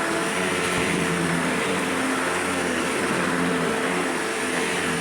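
Shark Professional Rotator True Pet upright vacuum cleaner running steadily as it vacuums the floor: an even motor whine with a few held tones over a rushing hiss.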